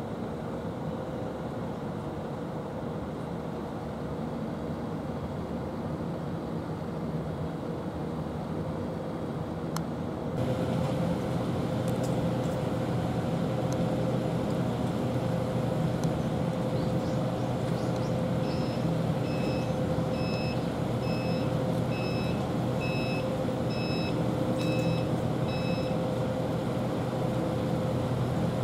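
Steady low hum of a running vehicle engine, with a constant mid tone, getting louder at a cut about a third of the way in. In the second half, about a dozen evenly spaced high beeps, roughly three every two seconds, from a vehicle's reversing alarm.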